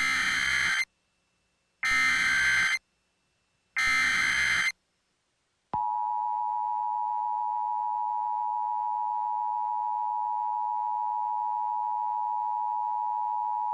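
Emergency Alert System alert tones: three short bursts of the SAME data header, each about a second long with a second's gap between them, then the EAS two-tone attention signal held steady for about eight seconds. It signals that an emergency message, here a severe thunderstorm warning, is about to be read.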